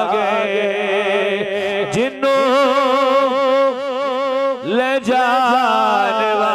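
A man singing a Punjabi naat into a microphone, drawing out long wavering notes with heavy vibrato, with short breaths about two seconds in and again just before five seconds.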